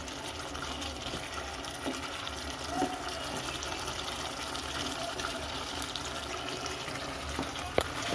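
Prawn curry in poppy-seed gravy simmering in a kadai, a steady bubbling, with a few short knocks and a sharper one near the end.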